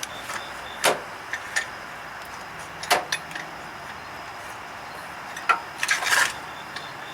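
Scattered knocks and clinks of hand tools and bolts being handled while a hydraulic pump is fitted under a truck, five or six short hits over a steady background hum.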